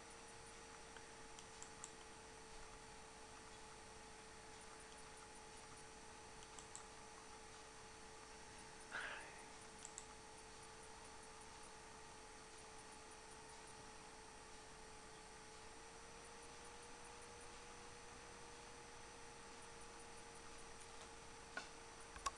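Near silence: a steady faint electrical hum, with a few faint clicks and one brief rustle about nine seconds in.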